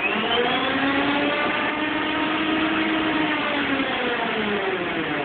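Electric-converted Murray lawn tractor's drivetrain running at full speed in top gear: a whine that rises over the first second as the speed controller ramps up, holds steady, then falls slightly near the end. Most of the noise comes from the transaxle; the electric motor itself is very quiet.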